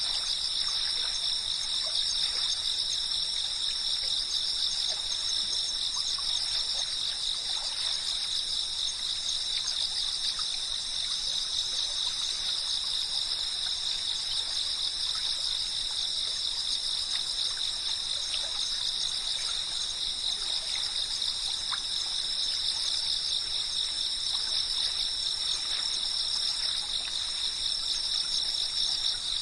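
A dense chorus of chirping insects, a continuous high-pitched shrill buzz that holds steady without a break, with faint scattered ticks beneath it.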